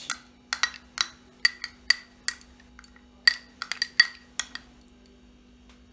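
Metal spoon clinking and scraping against a small china bowl while knocking mustard-seed paste out into a mixing bowl: a rapid, uneven run of sharp, ringing clinks that stops about four and a half seconds in.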